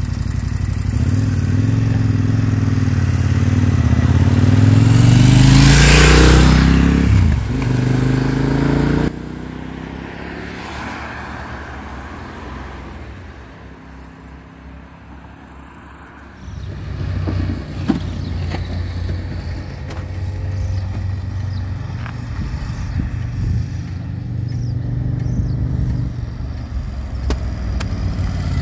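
Motorcycle engines on a mountain road. One bike pulls away with its engine note climbing and passes close about six seconds in, its pitch dropping as it goes by. After a quieter stretch of faint traffic, a KTM 1190 Adventure approaches at low revs, its engine growing louder.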